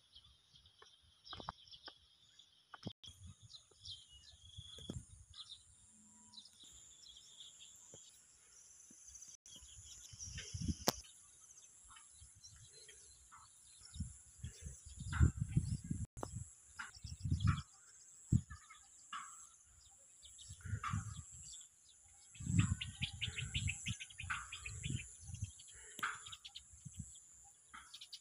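Birds chirping and calling over a steady high insect drone in open farmland. Irregular low rumbling bumps on the microphone come and go, loudest in the middle and latter part.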